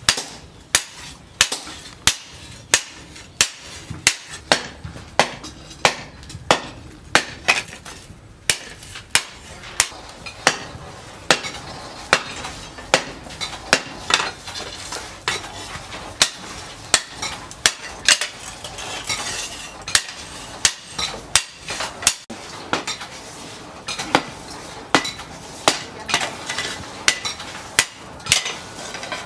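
Hand hammer striking a red-hot steel knife blade, forged from disc-plough steel, on a steel post anvil. The blows come in a steady rhythm of a little under two a second, each with a short metallic ring, with brief pauses twice.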